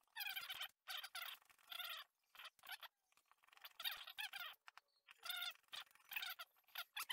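Fast-forwarded speech: a man's voice sped up into high-pitched, chipmunk-like gabbling in short bursts.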